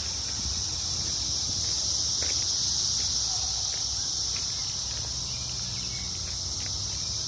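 Chorus of many cicadas, a steady, loud, continuous high buzz coming from every direction at once.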